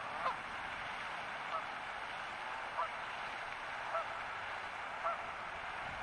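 Canada geese honking: five short honks, evenly spaced a little over a second apart, over a steady background hiss.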